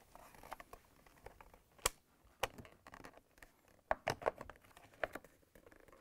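Plastic refrigerator hinge cover being fitted and pressed down over the top door hinge: scattered light clicks and scrapes of plastic, the sharpest about two seconds in.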